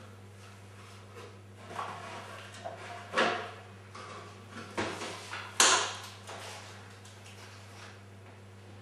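Equipment flight cases being opened and handled: a series of clunks and clicks from catches, lids and panels, the loudest about three and five and a half seconds in, over a steady low hum.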